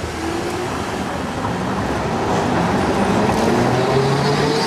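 Articulated electric tram approaching and passing close by, its wheels rumbling on the rails, getting steadily louder. Its motor whine climbs in pitch over the last second or so.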